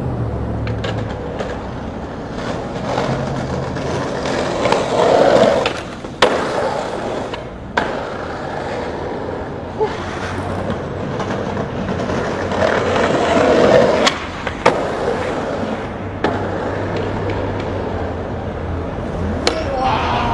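Skateboard wheels rolling over pavement, the rolling growing louder twice, with several sharp clacks of the board popping and landing.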